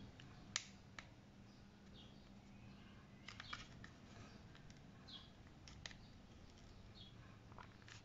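Faint, scattered clicks and creaks of plastic as fingertips pry a car side mirror's glass and its plastic backing out of the housing, with a sharper click about half a second in and a cluster of clicks around three and a half seconds.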